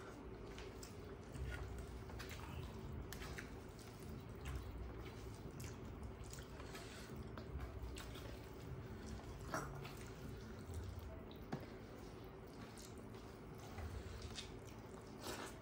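Faint sounds of eating rice and curry by hand from steel plates: wet squishing as fingers mix the food, chewing, and scattered small clicks.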